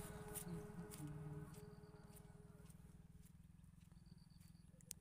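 Faint background music fading out over the first second and a half, then near silence with a low steady rumble.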